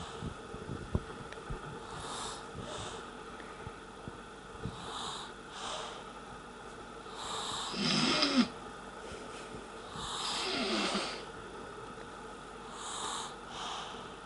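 A sleeping child snoring: soft, wheezy breaths come every two to three seconds, and two louder snores with a throaty pitched tone fall around the middle.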